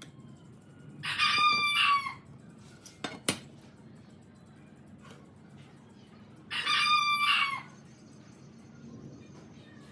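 A rooster crowing twice, each crow about a second long, with a sharp knock between them.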